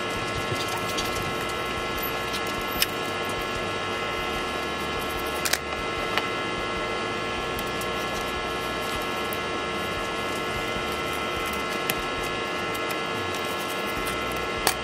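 Steady electrical hum with several fixed pitches over a hiss. A few light taps, as of a knife touching a plastic cutting board, are scattered through it.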